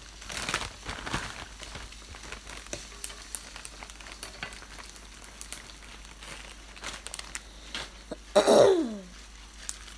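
A cough drop's wrapper crinkling and rustling as it is unwrapped, with scattered small clicks. Near the end a person clears the throat once, loudly, from a cough.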